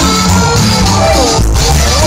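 Live band music played loud through a concert PA, with strong bass and a held melody line that bends in pitch.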